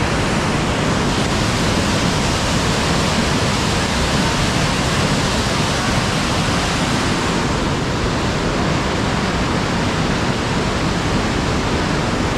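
River water pouring over a concrete spillway into whitewater below, a loud steady rush.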